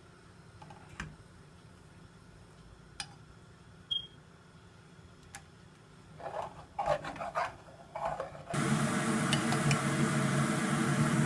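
Metal spoon stirring in a metal saucepan, with a few light clinks against the pot. About three quarters of the way in comes a sudden loud, steady hiss of the orange mixture boiling and sizzling in the pan.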